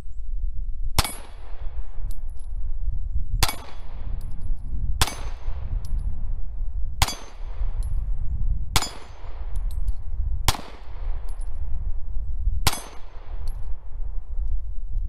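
Semi-automatic pistol fired seven times at a slow, even pace, about one shot every two seconds, each report dying away in a short echo. Light metallic clinks follow several of the shots, over a steady low rumble.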